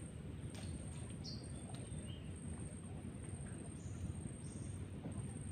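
Outdoor ambience: a few short, high bird chirps over a steady, thin, high insect drone and a constant low rumble, with a couple of faint clicks.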